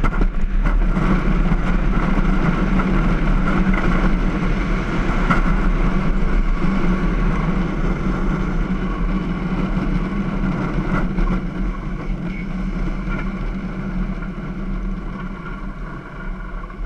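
Hard wheels of a downhill gravity cart rolling fast on asphalt: a steady rumbling roar mixed with wind buffeting the microphone, slowly easing off near the end.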